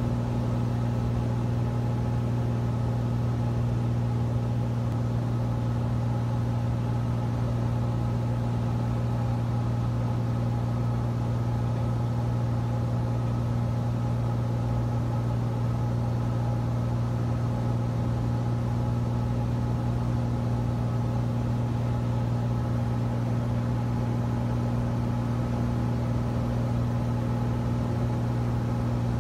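Cessna 172's piston engine and propeller running steadily in flight, heard from inside the cockpit as a constant low drone with a strong hum.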